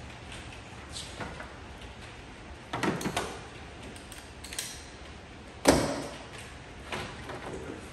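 Parts being handled and fitted by hand: a handful of scattered clicks and knocks, the loudest a little past halfway.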